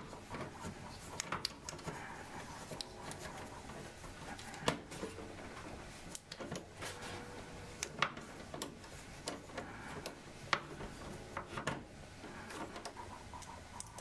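Scattered faint clicks and taps of hands handling a graphics card and its metal PCIe bracket inside a computer case, a sharp click every second or two.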